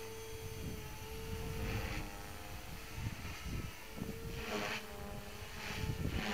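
MSH Mini Protos electric RC helicopter in aerobatic flight: a steady motor and rotor whine, with swells of rushing blade noise a few times in the second half as it manoeuvres.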